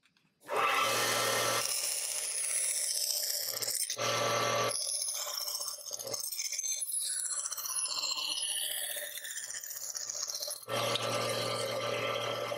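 Bandsaw running and cutting through thin plywood, the blade working in along marked lines, backing out and turning through a curve. The sound starts suddenly about half a second in, a steady motor hum under rough cutting noise, with a whine that glides up and down in pitch through the middle as the cut turns.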